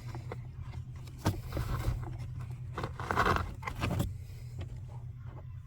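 Debris being pulled by hand out of a car's cabin air filter housing: irregular scraping and rustling with scattered clicks, over a steady low hum.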